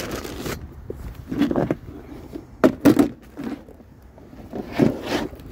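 Objects being picked up and moved: several separate clunks, knocks and rustles, loudest about a third of the way in and again near the end.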